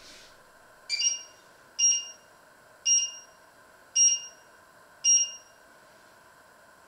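The touch controls of an electric glass-top hob beeping five times, about once a second, one short two-toned beep for each press of a touch key.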